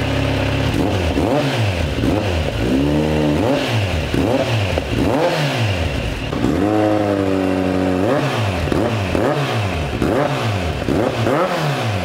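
Kawasaki Z900 inline-four engine blipped repeatedly through a Yoshimura R-77 carbon slip-on muffler held against the stock link pipe. It idles briefly, then revs up and back down about once a second, with one rev held for over a second about halfway through.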